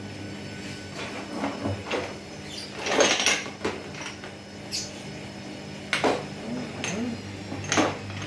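Rummaging through a kitchen cupboard full of spice jars: a cupboard door sliding and a string of separate knocks and clinks as jars are moved about, the loudest about three seconds in, over a steady low hum.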